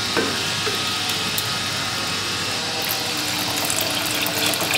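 Water pouring in a steady stream into a metal pot of sautéed rice, potatoes and tomatoes on the stove, with a wooden spatula stirring it in.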